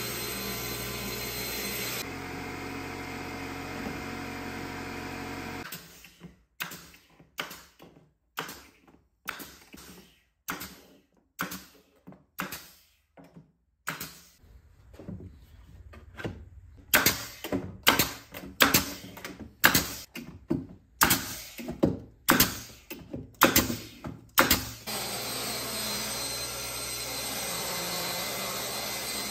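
SawStop cabinet table saw running steadily as it cuts a white-faced panel. Then a long run of short, separate bursts, a couple a second and louder in the second half, from a cordless drill driving screws into the wooden frame. Then the table saw runs steadily again.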